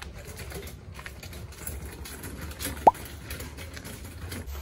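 A single short 'plop' about three seconds in, a quick drop in pitch like an edited pop sound effect, over a steady low background hum.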